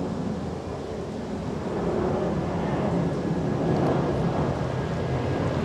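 Steady low outdoor rumble of open-air golf-course ambience, with wind on the microphone, getting slightly louder in the second half.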